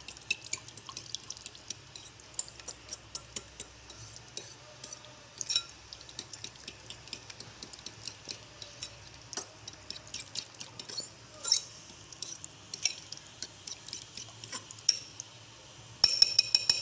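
A metal fork mashing set jelly in a glass bowl: irregular clinks and taps of the fork against the glass, with soft squishing of the jelly. Near the end there is a quick, louder run of clinks with a brief ringing of the glass.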